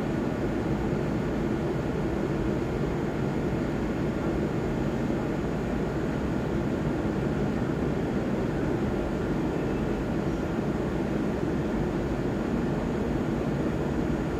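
Amtrak passenger train standing at the platform, giving a steady rumbling hum with a few faint steady whine tones above it, unchanging throughout.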